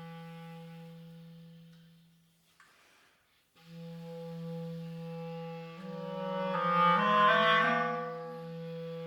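Clarinet playing slow, sustained low notes: the first dies away about two and a half seconds in, and after a short silence a new long note begins, swelling louder with more notes layered over it about seven seconds in.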